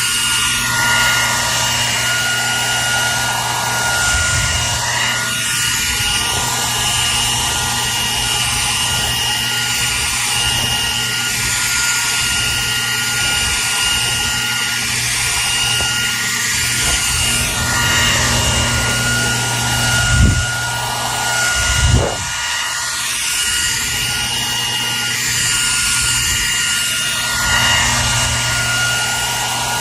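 Hair dryer running steadily, an even rushing hiss with a constant whine and low motor hum, used as white noise to soothe a baby. Two brief low thumps about two-thirds of the way through.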